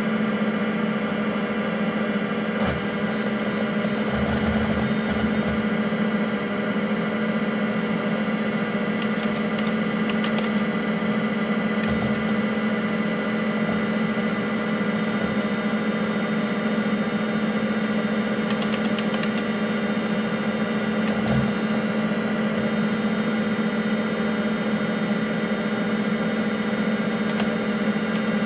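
IBM PC AT (5170) running steadily: the hum of its cooling fan and the spinning Seagate ST-4038 MFM hard drive, with a few soft low knocks from the drive's heads seeking, about four seconds in, around twelve seconds and again past twenty seconds.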